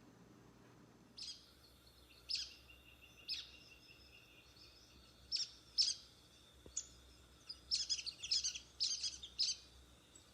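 A bird calling in short, sharp, high chirps, a few spaced notes at first and then quicker runs of notes in the second half, over a faint hiss.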